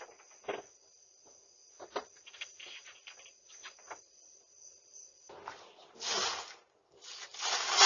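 Crickets trilling steadily at night, with a scattering of short clicks and rattles: a doorknob being tried and jiggled. About five seconds in, the crickets cut off, and two longer bursts of rustling noise follow.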